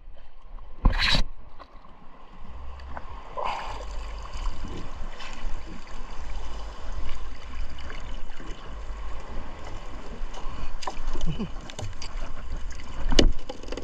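A wet fishing net being hauled by hand over the side of a small boat, with water splashing and dripping off the mesh. Two sharp knocks come about a second in and again near the end.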